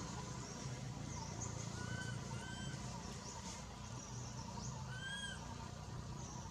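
A few short, arched, whistle-like animal calls, each rising and falling in pitch, with fainter high chirps, over a steady low hum.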